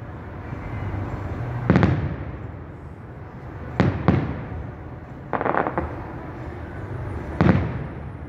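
Fireworks display: aerial shells bursting with loud booms, one about two seconds in, a quick pair near four seconds and another near the end, each trailing off, with a short burst of crackling in between over a steady low rumble.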